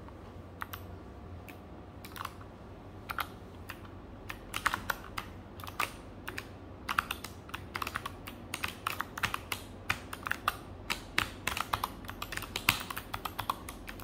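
Typing on a mechanical keyboard: irregular key clicks, a few scattered ones at first, then quick bursts of keystrokes from about four seconds in.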